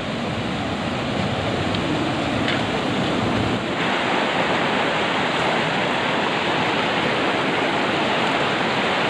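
Fast river rapids rushing over rocks, a steady, even wash of water; the sound shifts once, a little over a third of the way through, when it becomes brighter and less rumbly.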